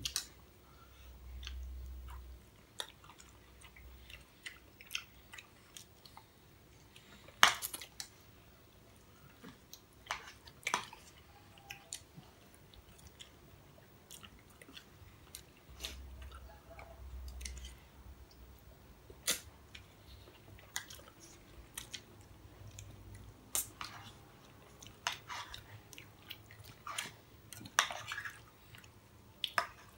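People chewing food at a table, with scattered sharp clinks of metal spoons against ceramic bowls; the loudest clink comes about seven seconds in.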